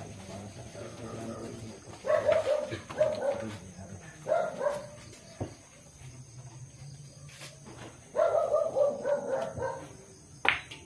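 A dog barking in several short runs of sharp barks. Near the end comes a single hard clack of a cue striking a pool ball.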